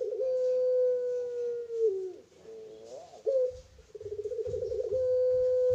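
Puter pelung dove, a caged collared dove, calling twice: each call is a warbling, rolled coo that runs into one long, held note sinking slightly in pitch. The first ends in a short downward slide about two seconds in; the second starts about a second later and is still holding its long note at the end.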